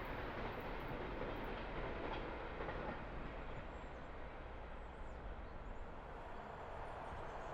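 Passenger train running along the track: a steady rumble of wheels on rails.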